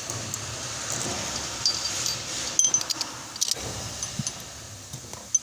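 Hand work on metal car parts: scattered sharp metallic clicks and clinks over a steady background hum, with a short cluster of clicks near the middle and more near the end.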